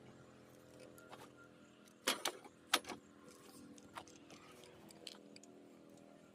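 Scrap items being handled and loaded: a few sharp metallic clinks and rattles, the loudest a little after two seconds in, over a faint steady hum.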